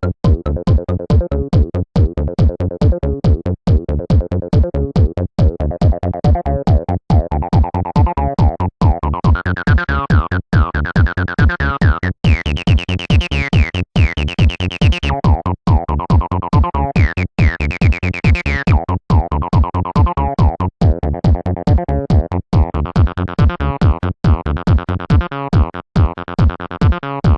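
Acidcore electronic dance music: a drum machine keeps a steady fast beat under a repeating synthesizer pattern. The synth brightens through the middle, dims, then brightens again near the end.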